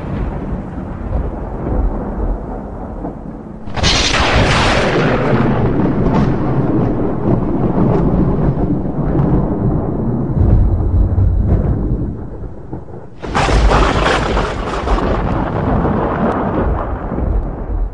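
Thunder rumbling, with two sharp cracks about four and thirteen seconds in, each trailing off into a long low rumble.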